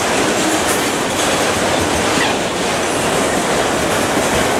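Freight train of autorack cars rolling past, its steel wheels making a steady noise on the rails with faint clicks over the rail joints.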